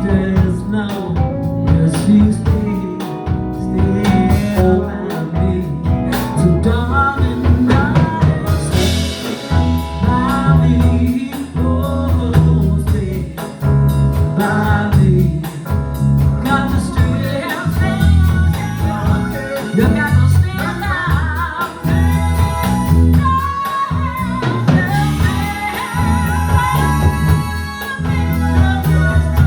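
A singer performing with a live band: the vocal line rides over a steady pulsing bass and drums.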